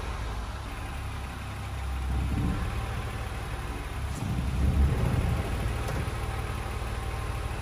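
BMW E36 320i's straight-six engine idling with a steady low rumble that swells briefly twice, about two and five seconds in.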